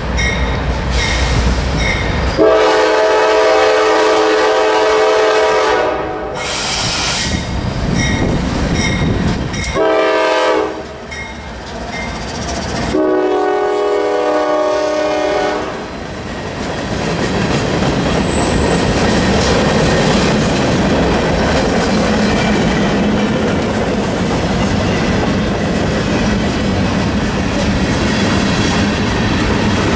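Norfolk Southern diesel freight locomotive rumbling up and sounding its chord horn at close range: a long blast a few seconds in, a short one about ten seconds in, then another long one. The locomotive passes and a string of freight and tank cars rolls by with a steady rumble and wheel clatter.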